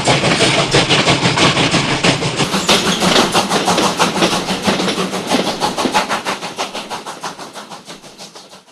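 Steam train running with a quick, even beat of strokes. It fades out over the last few seconds.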